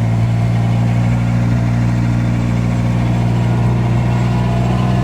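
An engine idling steadily, a low even hum that holds the same pitch throughout.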